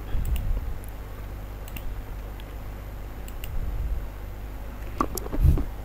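Typing on a computer keyboard and mouse clicks: a scattering of light, separate key clicks over a low steady hum, with a duller, louder thump near the end.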